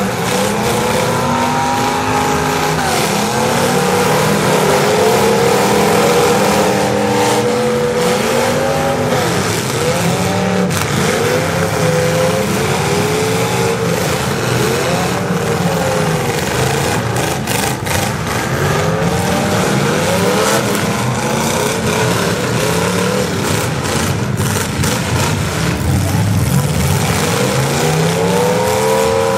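Several demolition derby cars' engines revving up and down over one another, with occasional sharp bangs.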